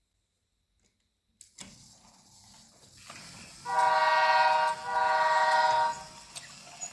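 Battery-powered Brio toy train set starts running with a low motor and rolling noise, then plays a recorded train horn sound through its small speaker: two long hoots, about a second each.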